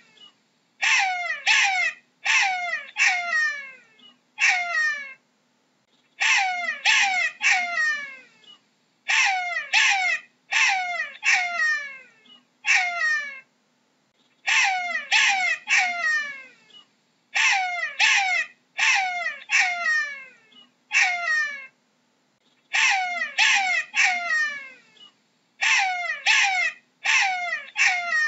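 Jackal yelping: a long series of short, high calls, each dropping sharply in pitch, given in quick bursts of three to five with short pauses between.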